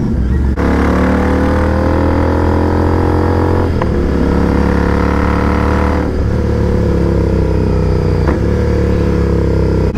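Royal Enfield Continental GT 650's parallel-twin engine running while riding, its note held steady and sagging slightly in pitch. The note changes briefly about four and six seconds in.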